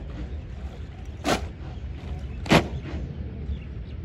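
Soldiers of a drill contingent executing drill movements in unison: two sharp crashes about a second and a quarter apart, the second louder, over a low steady rumble.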